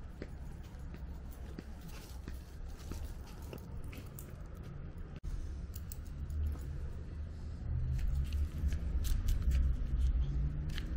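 Walking along a paved path: faint footsteps and small crunches over a low rumble of wind and handling on the microphone, the rumble growing louder in the last few seconds.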